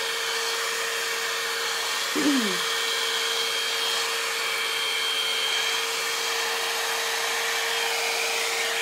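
Head Kandy Commitment Issues hot-air blow dry brush running steadily as it dries a section of hair: a constant rush of air with a steady motor hum.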